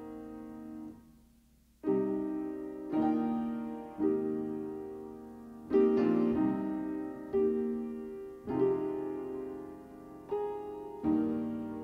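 Slow piano music: chords struck about once a second, each one fading away, with a brief hush about a second in.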